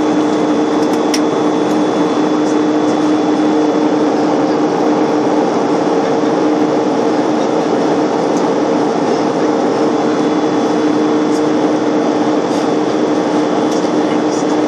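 Airliner cabin noise: a steady rush of engine and air noise with two constant low hums, unchanging throughout.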